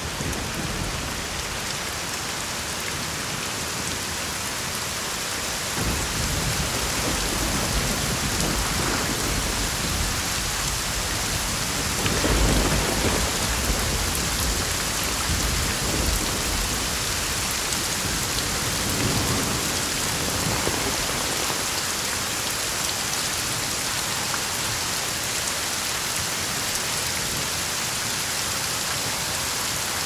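Steady rain. Low thunder rumbles under it from about six seconds in, loudest near the middle, and dies away about two-thirds of the way through.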